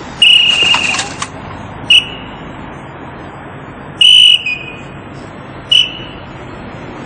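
Police officer's traffic whistle blown in four blasts, directing traffic at a crossing with no working signals. The first blast is long and trilling, then comes a short blast, a firmer one about four seconds in, and another short one, all over a steady hum of traffic.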